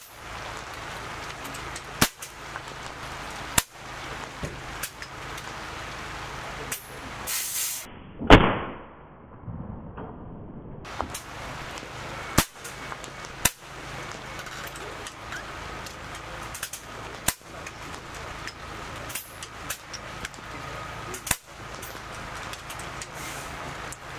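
PCP air rifles firing from a benchrest line: a string of sharp single shots from different benches, a second or several apart and irregularly spaced, over a steady background hiss. The loudest and nearest shot comes about eight seconds in.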